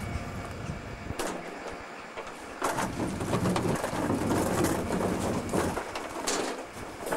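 Norba RL200 rear-loading garbage truck emptying a wheelie bin into its hopper, with the engine and hydraulics running as a low hum that swells louder about two and a half seconds in. Several sharp bangs from the bin and lifter striking the hopper.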